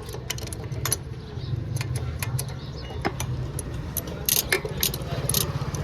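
A small engine running steadily, with irregular sharp metallic clicks and clinks over it.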